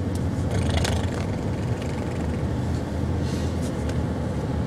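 Steady low rumble of a car's engine and road noise heard from inside the cabin. Two brief breathy hisses come through it, about a second in and again about three and a half seconds in.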